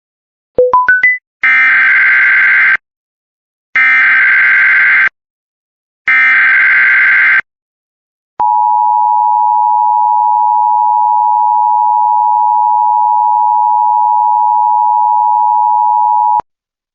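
Emergency Alert System tones: four quick rising beeps, then three SAME header data bursts of buzzing digital tones about a second and a half each, then the two-tone EAS attention signal held steady for about eight seconds and cut off sharply. Together they announce an Amber Alert.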